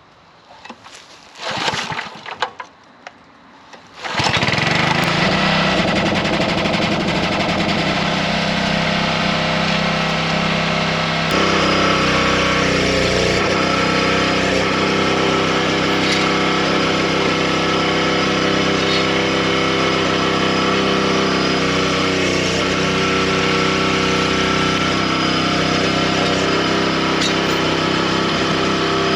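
Small gasoline engine of a wood splitter starting about four seconds in, after a few short noisy sounds, then running steadily; its note shifts about eleven seconds in.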